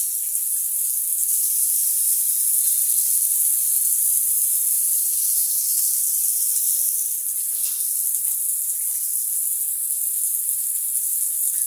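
Water spraying from an overhead rain shower head onto tiled walls: a steady high hiss that drops slightly about seven seconds in.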